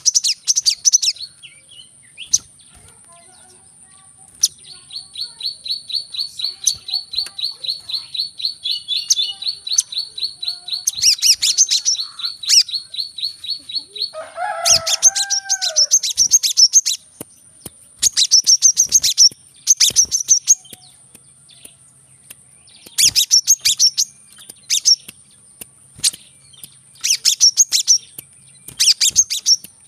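Brown-throated sunbird singing: clusters of high, rapid chirps, with a long, even run of quick repeated notes from about five seconds in to about fourteen seconds.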